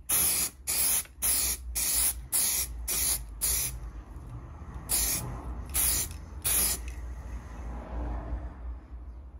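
Aerosol can of primer spraying in short hisses, about eight in quick succession, then a pause and three more, as a second coat of primer goes onto a masked-off repair patch.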